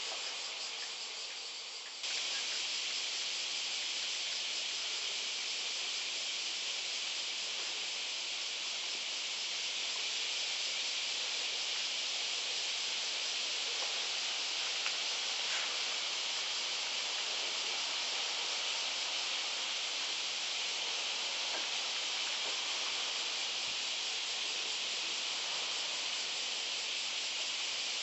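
Steady, high-pitched insect chorus, a continuous shrill hiss that gets louder about two seconds in.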